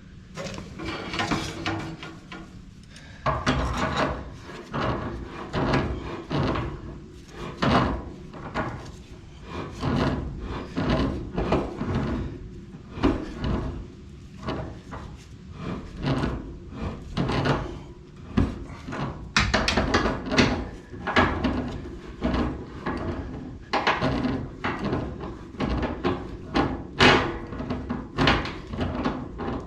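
Irregular knocks, clunks and scrapes of hands-on work with tools and parts, several a second, with no steady machine running.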